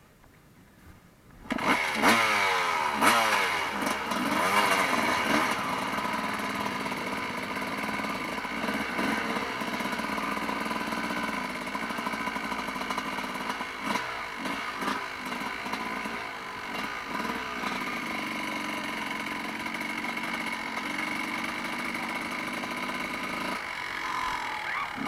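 Motocross motorcycle engine bursting into life about a second and a half in, revved up and down a few times, then running steadily.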